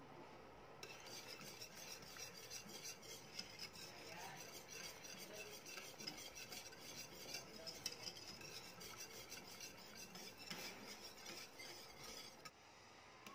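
Wire whisk stirring teriyaki sauce in a metal pot, the wires scraping and clinking against the pot in quick, continuous strokes while the sauce cooks down to thicken. It starts about a second in and stops shortly before the end.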